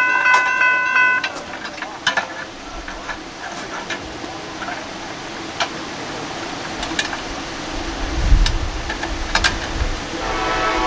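Electronic railroad-crossing bell ringing in a fast, even pulse, then cutting off about a second in as the gate test ends. A quieter stretch follows with scattered sharp clicks and a low rumble about eight seconds in.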